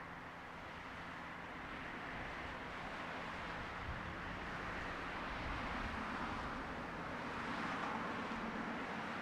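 Street traffic: cars passing on a local city street, their tyre and engine noise swelling and fading as a steady wash, growing louder through the middle and near the end.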